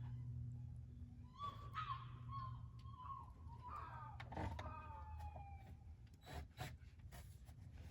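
A chicken calling: a drawn-out, wavering call lasting several seconds that falls away near the end, followed by a few light knocks, over a steady low hum.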